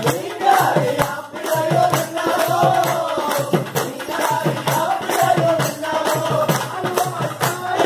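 Devotional song: a sung melody over a steady percussion beat of about three strokes a second.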